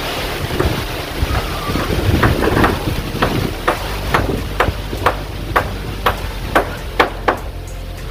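A hammer knocking on zinc roofing sheet, about two blows a second for several seconds, with wind blowing steadily on the microphone.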